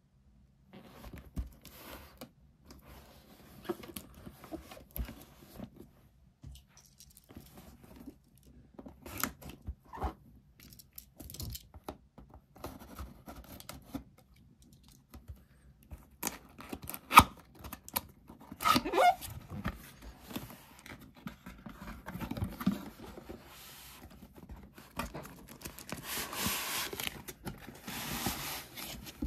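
Cardboard box being handled and opened, with rustling, scraping and tearing, and one sharp knock a little past the middle. Near the end comes a longer hiss of the foam packing inserts sliding out of the box.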